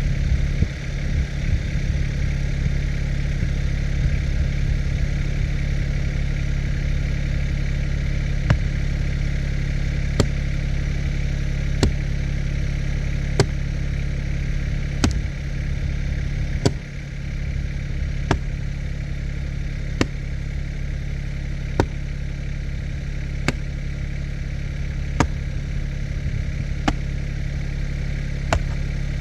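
Kymron XH20D mini-excavator engine running steadily while it digs out a tree stump. A sharp tick repeats about every second and a half through the second half.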